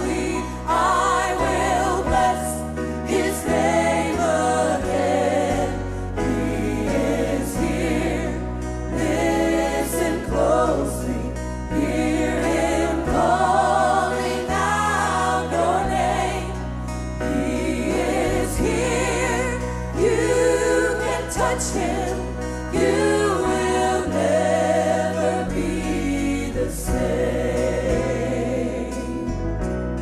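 Gospel worship song: a woman sings lead with vibrato, amplified, backed by a choir and a band, the bass notes shifting every few seconds.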